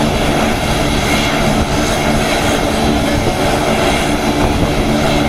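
Lockheed C-130J Super Hercules's four Rolls-Royce AE 2100 turboprops running steadily with the aircraft stopped on the ramp, a steady propeller drone with a held low hum.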